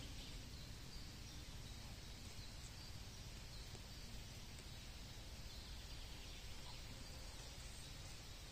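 Quiet forest ambience: a faint, steady background hiss with no distinct sounds standing out.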